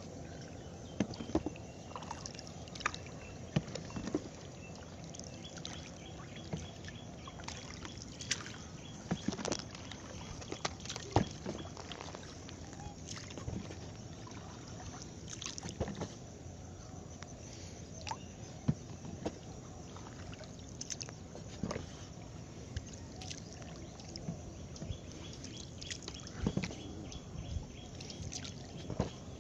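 Small boat on water: water slopping against the hull, with irregular knocks and clatter from gear being handled aboard.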